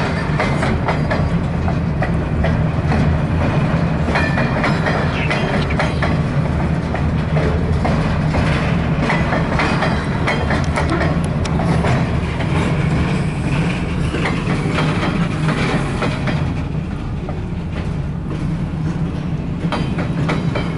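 A CSX freight train's cars rolling past close by: a steady low rumble of wheels on rail, with irregular clicks and clacks from the wheels and couplers, easing a little near the end.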